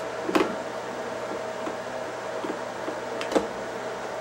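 Screwdriver driving a cover-plate screw into a light switch box, with two sharp clicks of the tool on the screw and plate and a few faint taps between them, over a steady mechanical hum.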